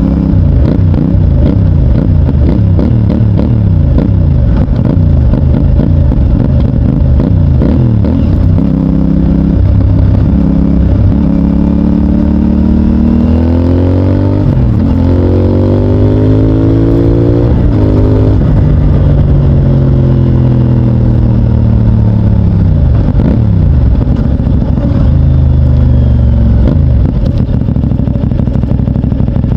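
CFMOTO 450NK's parallel-twin engine through its stock exhaust, ridden hard and rising and falling in revs. About halfway it climbs in pitch through two quick shifts, then drops away as it slows, before picking up again.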